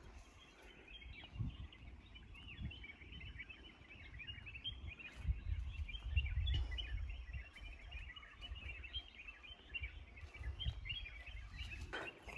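Faint chorus of small birds chirping continuously in the surrounding trees and bushes, over a low rumble that grows louder about halfway through.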